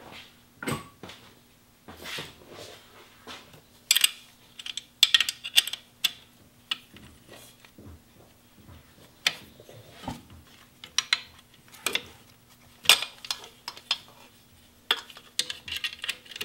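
Metal hand tools clinking and clicking against bolts and engine metal as wrench work loosens the alternator mounting bolts: irregular sharp clinks, some in quick clusters.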